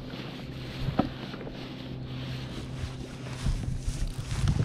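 Wind buffeting the microphone and water lapping against a plastic kayak hull, over a steady low hum, with a light knock about a second in.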